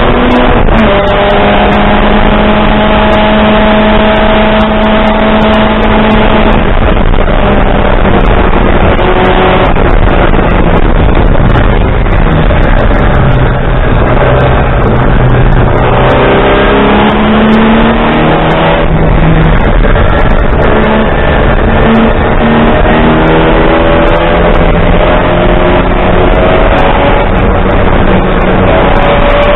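Racing saloon car's engine, heard from inside the cockpit over wind and road noise. It runs loud, its pitch climbing and then dropping several times as the driver changes gear and lifts for corners.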